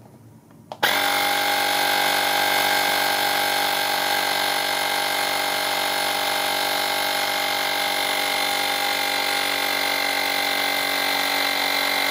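Battery-powered portable tire inflator's small air compressor switching on suddenly about a second in, then running loud and steady with a constant whine as it pumps air into a deflated mini basketball.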